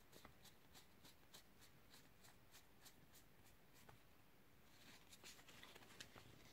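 Faint soft clicks of stiff trading cards being flicked one at a time through a fanned hand, about three a second, followed near the end by a short patch of rustling taps as the stack is gathered together.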